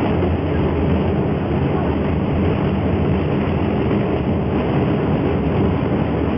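Steady loud rumble inside a ski gondola cabin in strong wind, with wind buffeting the cabin.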